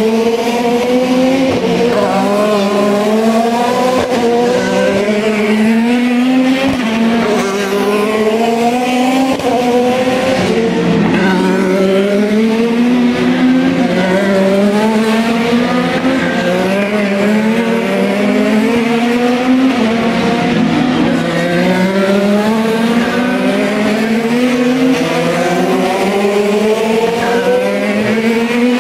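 IndyCar race cars' twin-turbo V6 engines accelerating hard, several cars in turn: the pitch climbs and drops back at each upshift, again and again. Loud and continuous.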